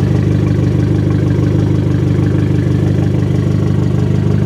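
2013 Fiat 500 Abarth's 1.4-litre MultiAir turbocharged four-cylinder idling steadily, heard close at the exhaust tailpipe: a low, even drone at constant pitch.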